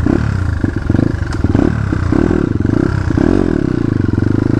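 Dirt bike engine running just after starting, revved up and down several times.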